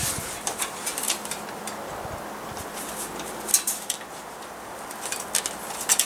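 Scattered light clicks and small metallic rattles of a kerosene heater's metal wick holder being handled, as a new wick is worked around it to smooth out a wrinkle.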